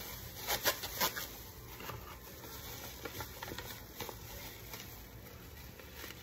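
Disposable plastic food-prep gloves crinkling as the hands move in them, then a seasoning packet rustling as it is handled. The sharpest crackles come in the first second, followed by a scatter of lighter crinkles.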